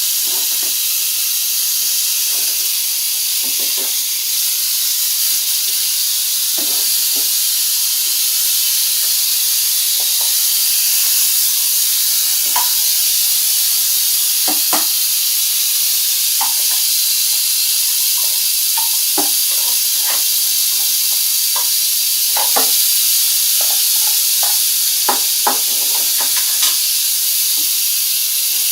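Rattlesnake rattling its tail in a continuous high buzz, the defensive warning of an agitated snake, with scattered faint knocks.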